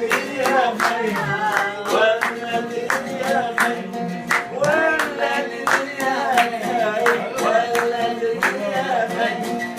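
Oud played with singing, with hand clapping keeping a steady beat of about two claps a second.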